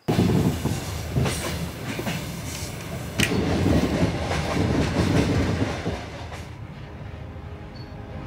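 Passenger train running on the track: a steady rumble of the wheels with sharp clacks over the rail joints, the loudest about three seconds in. It eases to a quieter rumble after about six seconds.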